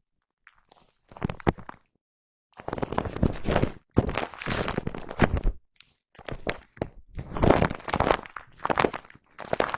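Foam brush rubbed across a microphone, making crunchy, scratchy brushing strokes of about a second each with short gaps between. Silent for about the first second.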